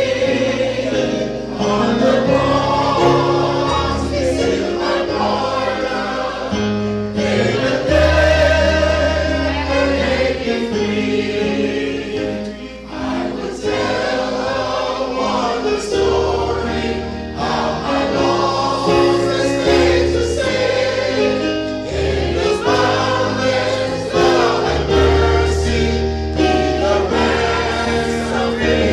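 Choir singing a gospel hymn over a sustained bass accompaniment, the bass notes changing every second or two.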